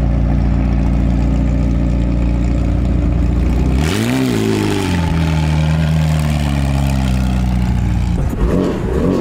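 McLaren 720S twin-turbo V8 idling, then a quick rev about four seconds in as the car pulls away, the engine note holding higher for a few seconds before easing off.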